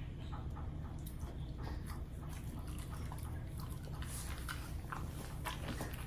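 A husky chewing a snack: a steady run of short crunching, smacking clicks, busier in the second half.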